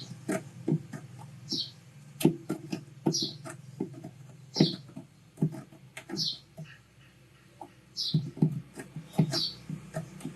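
Small tools tapping and clicking on a phone circuit board while a charging socket's pins are soldered: irregular light taps, with a short high chirp about every second and a half.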